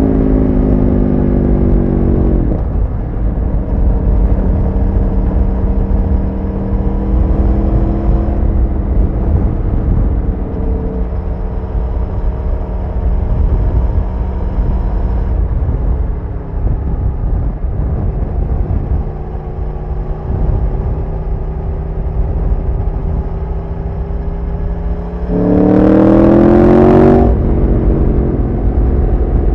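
Aprilia Tuono motorcycle engine while riding, held at fairly steady revs after the pitch drops a couple of seconds in. Near the end it opens up in a short, loud acceleration with rising pitch, then settles back.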